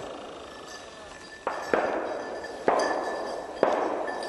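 Four shotgun shots, each trailing off in echo: two close together about a second and a half in, then two more about a second apart.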